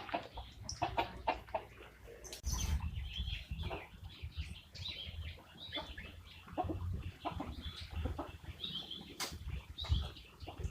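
Chickens moving about, with wing flapping and rustling, scattered knocks and clicks, and short high calls now and then.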